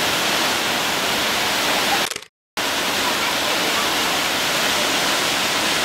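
Waterfall's steady rushing noise, cutting to total silence for about a third of a second a couple of seconds in.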